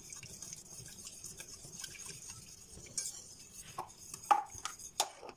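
Wire whisk stirring milk with dissolving gelatin in a stainless steel saucepan: a soft steady swishing with light scrapes. A few sharp clinks against the pan come in the second half, the loudest about four seconds in.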